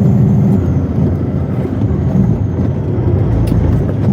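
Western Star logging truck's diesel engine running, heard from inside the cab as a steady low drone whose even note breaks up into a rougher rumble about half a second in.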